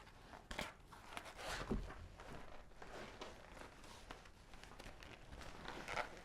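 Someone moving about a small room: scattered rustling and a few soft knocks and thuds, the clearest about half a second in, near two seconds and near the end.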